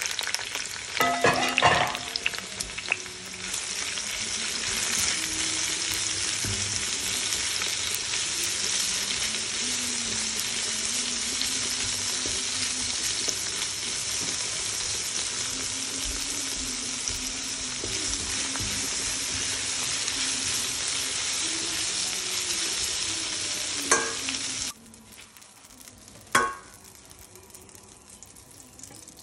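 Sliced red and green peppers sizzling steadily in hot olive oil in a wok, with clattering from the vegetables and tongs in the first few seconds. The sizzle cuts off sharply near the end, and a couple of light knocks follow.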